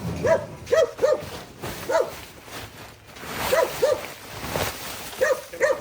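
A dog barking: about eight short barks, several in quick pairs.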